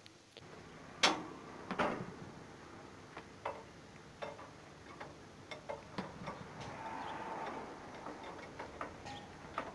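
Irregular light clicks and knocks of hand work at a tractor's front end, with parts and tools handled against metal. The sharpest knock comes about a second in.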